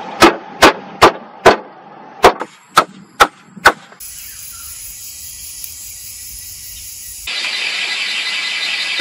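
About eight sharp blows of a hatchet striking wood over the first four seconds. Then a steady hiss from a stovetop moka pot brewing on campfire coals, which gives way to a brighter steady noise about seven seconds in.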